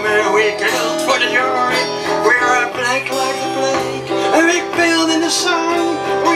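Small live band playing: strummed and picked acoustic guitars with an electric guitar, a continuous song with bending melody notes on top.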